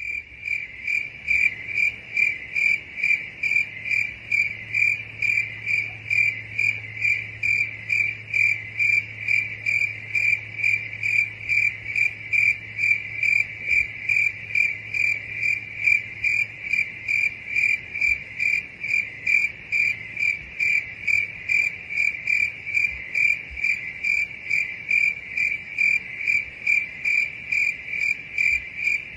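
Cricket chirping in an even rhythm, about two high-pitched chirps a second, without a break.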